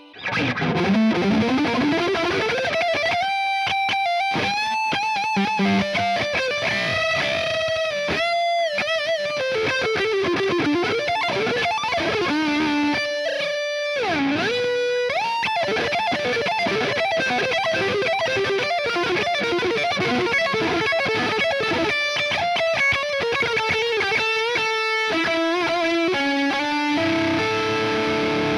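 Ibanez S320 electric guitar with DiMarzio pickups, played through a distorted tone in a lead demo. It starts with a slide up, goes on with string bends and vibrato, has a deep pitch dip and return about halfway through, and ends on ringing held notes.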